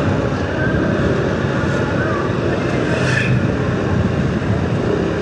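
Riding noise from a moving motorcycle: steady wind rush on the microphone mixed with engine and traffic.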